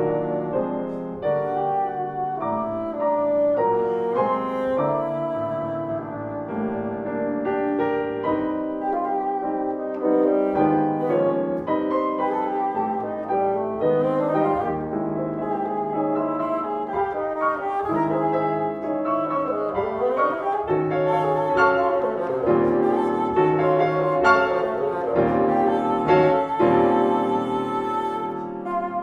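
Bassoon and piano playing classical chamber music together, the bassoon holding long pitched notes over the piano.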